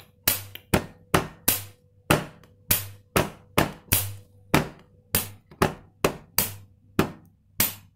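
Two-pitch hand percussion on a glass tabletop: low thumps from a flat hand alternate with sharp clicks from a plastic pen. The strokes come in a steady, repeating four-beat rhythm, about two a second.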